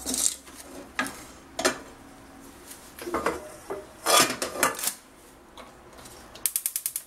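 Wooden spoon scraping and stirring dry sugar in an aluminium pudding mould over a low gas flame to start a caramel: several gritty strokes, the loudest about four seconds in. Near the end comes a quick run of about seven clicks, a gas stove's spark igniter lighting a burner.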